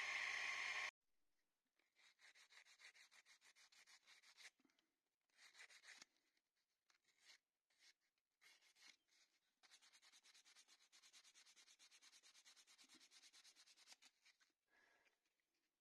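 Sandpaper rubbed by hand on a wooden arrow nock in runs of quick back-and-forth strokes with short pauses, polishing the nock. At the very start a bench power tool is heard running before it cuts off abruptly about a second in.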